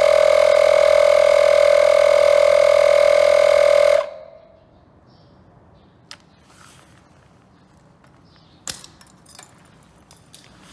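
Makita MP180DZ cordless inflator's compressor pumping up a motorcycle tyre with a steady buzzing hum, cutting off suddenly about four seconds in. After it stops come a few faint clicks.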